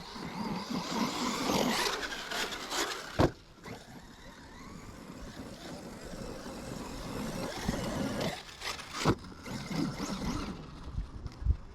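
Radio-controlled car on paddle tires driving through sand, a rough noise of motor and spinning tires that swells and fades. Two sharp knocks stand out, about three seconds and nine seconds in.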